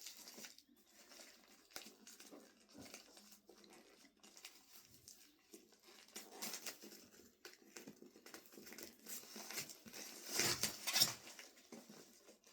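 Packaging being unwrapped and books handled: paper and plastic rustling with scattered light taps, rising to a louder burst of rustling about ten seconds in.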